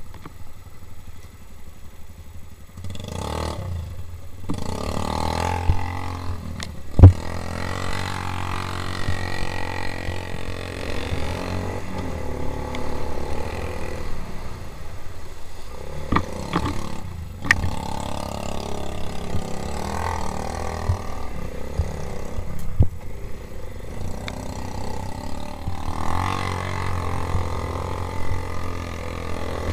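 Small four-stroke quad bike (ATV) engine running with changing revs, with several sharp knocks and clatter, the loudest about seven seconds in.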